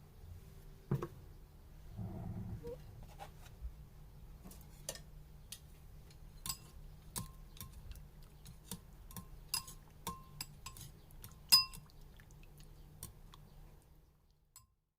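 Utensils clinking against ceramic dishes: a dozen or so separate light taps at uneven intervals, each ringing briefly, the loudest near the end, over a faint low hum.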